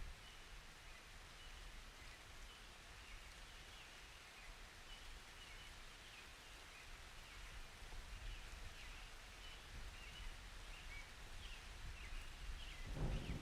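Light rain hissing softly, with scattered faint high chirps over it. Near the end a low thunder rumble begins to build.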